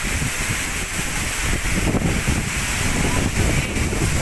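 Heavy rain pouring down in a windstorm: a steady hiss, with uneven low gusts of wind buffeting the microphone.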